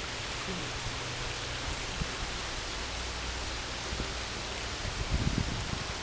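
Steady, even rush of flowing water, a waterfall or stream. Low thumps of wind or handling on the microphone come in about five seconds in.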